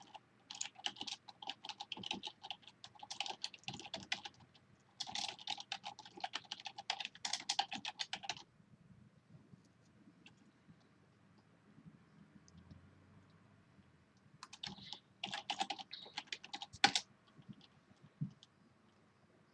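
Typing on a computer keyboard: two runs of quick keystrokes in the first half, a pause of several seconds, then a shorter run near the end that finishes with one sharper click.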